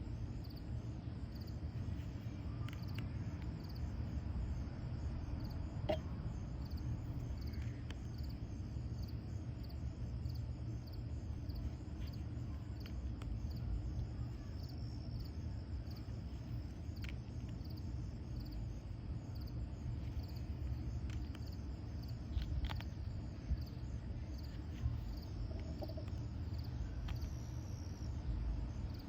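Steady low background hum with a faint, repeated high-pitched pulsing, and a few soft clicks now and then from playing cards being handled.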